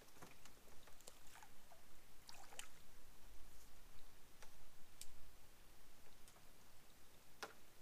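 Faint, scattered sharp clicks and ticks at irregular intervals over a quiet background, the loudest near the end.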